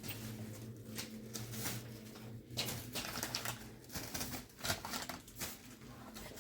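Irregular light taps and knocks, a few a second, over a low steady hum; the sharpest knock comes a little past the middle.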